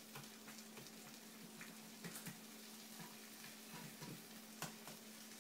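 Quesadilla frying on medium in olive oil in a non-stick frying pan: a faint, steady sizzle with a few small crackles about two seconds and four and a half seconds in.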